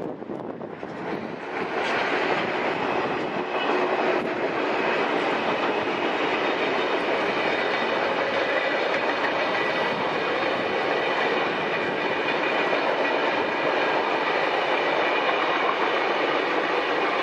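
Passenger train hauled by an Italian-built E-32 series electric locomotive running past, a steady rumble of wheels on rail that builds up over the first two seconds and then holds.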